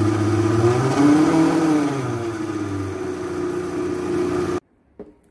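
Vitamix blender motor running steadily as it purées chiles and broth, its pitch rising and falling back about a second in as the speed dial is turned. It cuts off suddenly near the end.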